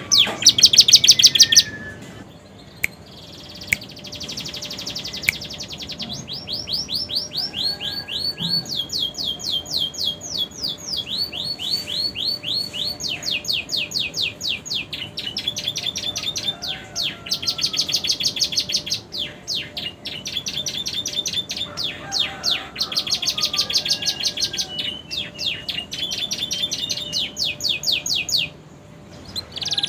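Domestic canary singing long, fast trilled rolls of rapidly repeated high notes, its song filled with phrases copied from prenjak and ciblek (prinia) songs, with short breaks about two seconds in and near the end.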